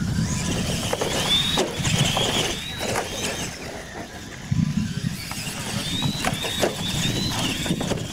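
Radio-controlled monster trucks racing on dirt: their motors and gears whine high, rising in short sweeps again and again as they accelerate. Frequent sharp knocks and thumps come from the trucks bouncing over the dirt and ramps.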